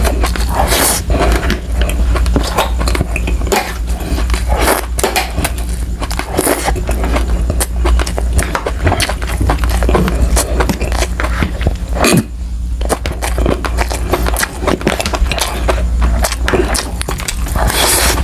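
Close-miked eating: wet chewing and lip smacking over soft braised tuna roe and potatoes, with irregular sharp clicks from a metal fork. A steady low hum runs underneath.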